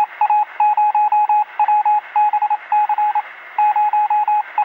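Sound effect of a radio signal: a single beeping tone keyed on and off in quick irregular groups of short and longer beeps, like Morse code, over a thin radio hiss.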